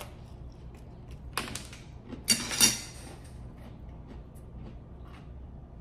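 Eating sounds: chewing a wheat cracker spread with liver pâté, with a couple of short, louder noisy mouth sounds a little past two seconds in.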